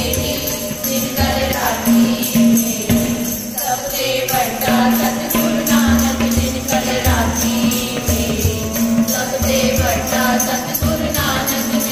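A group of women singing a Sikh devotional hymn (shabad kirtan) together over a harmonium's held chords, with a hand-held clapper's metal jingles shaken in rhythm and a tabla beating underneath.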